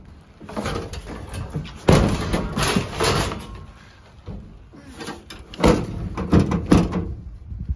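Pickup truck door being opened: the outside handle pulled and the latch and door clunking, heard as a string of rattles and several sharp knocks, loudest in the second half.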